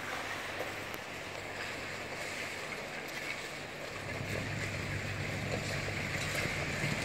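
Steady hiss of an indoor ice rink's ambience, with a low steady hum coming in about four seconds in.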